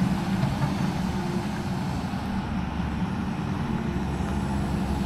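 A vehicle engine running steadily with a constant low hum, without change in pitch or level.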